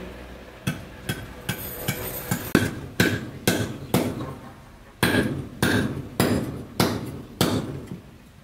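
A knife blade striking down along a green wooden stick again and again, about two sharp knocks a second with a brief metallic ring on each, pausing once about four seconds in.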